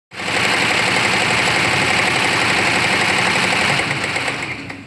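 ZSK commercial embroidery machine stitching at speed, a rapid, steady needle clatter with a hiss on top. It grows quieter near the end.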